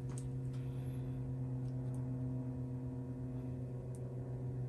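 Steady low electrical hum, with a few faint light clicks.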